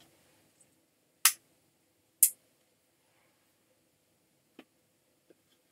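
Two short breathy hisses from the woman, about a second apart, then two faint clicks near the end over quiet room tone.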